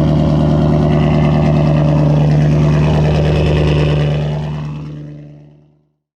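Ford Mustang GT's V8 running at a steady idle after a cold start. The sound fades out about four seconds in.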